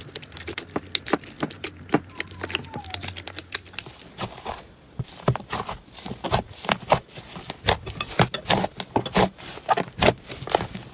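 Slime being squeezed and worked by hand, giving a dense run of quick, irregular sticky clicks and pops.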